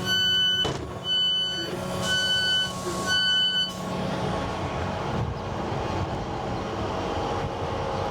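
Train door warning beeps, about one a second, five times, stopping a little under four seconds in; a steady rumble from the stationary train carries on under and after them.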